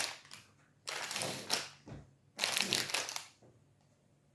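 Plastic protein-bar wrappers crinkling as the bars are handled, in two short bursts.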